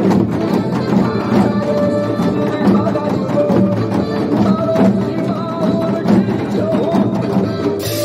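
A group of janggu (Korean hourglass drums) on stands, struck with sticks in a steady rhythm together, played along to a recorded trot song.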